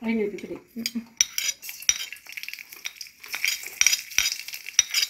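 Mustard seeds sizzling and popping in hot coconut oil in an aluminium wok, the first step of tempering. The hiss starts about a second in and builds, with many sharp ticks and pops.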